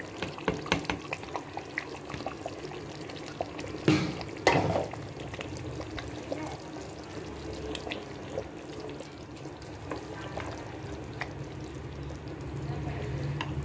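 Whole brinjals and green chillies dropped from a bowl into a metal pot of simmering gravy, with small splashes and clicks, then two loud knocks about four seconds in. After that the gravy bubbles steadily and a ladle stirs it near the end.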